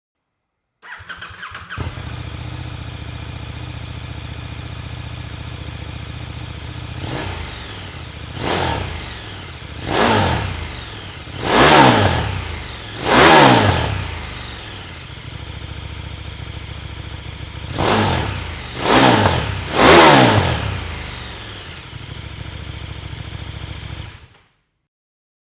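KTM 1390 Super Duke's V-twin engine through an Arrow X-Kone slip-on muffler: it cranks and catches about a second in, idles, and is blipped hard in two sets of quick throttle revs, about five and then three, each rising and falling back to idle. It shuts off suddenly near the end.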